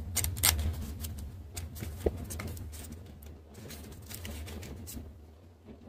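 Small paper packaging rustling and light clicks as a tiny toy box and its paper insert are handled, over a steady low hum. The handling noises come thickest in the first three seconds and thin out toward the end.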